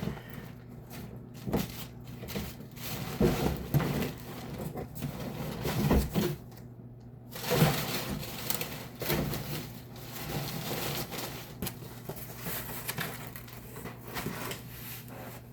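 Cardboard shipping box being broken down and folded flat: irregular crunching, creasing and knocking of cardboard.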